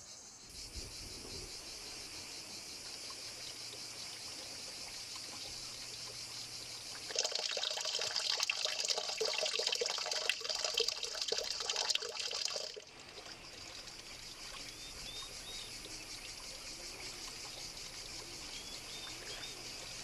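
Water trickling and splashing off a stone ledge into a shallow pool, loudest for about six seconds in the middle, over a steady high drone of insects. A few short bird chirps come near the end.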